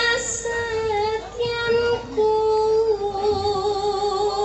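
A female Javanese sinden sings solo into a microphone in pelog 6. She holds a few long notes with a slight waver, with short breaks between phrases.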